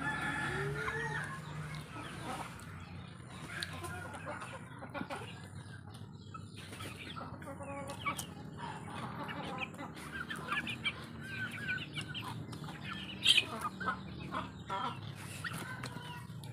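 Domestic chickens clucking on and off throughout, with one sharp click about thirteen seconds in.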